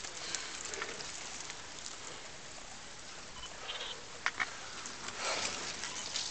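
Road bicycles climbing past on a wet tarmac lane: a steady hiss of tyres on the wet surface, swelling briefly as a rider passes close about five seconds in, with a couple of sharp clicks just before.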